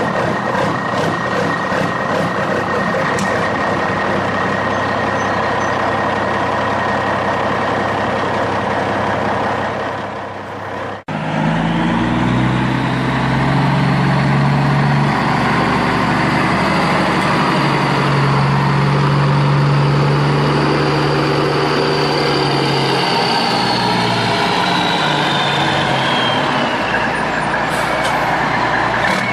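Truck engine running steadily, then after an abrupt cut about eleven seconds in, the truck drives off: the engine note and a high whine climb, hold, then fall away as it eases off.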